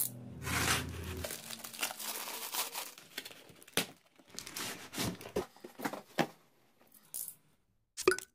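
Packaging being torn open by hand: a plastic courier mailer and the taped cardboard and paper inside crinkle and rip in a run of irregular tears. A few short separate rips follow near the end.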